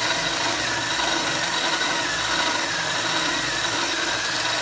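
Electric drill running steadily under load, its bit cutting away the head of a steel rivet on a washing machine's transmission cover.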